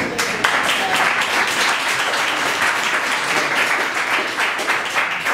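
Audience applauding, many hands clapping densely; it starts suddenly and eases off near the end.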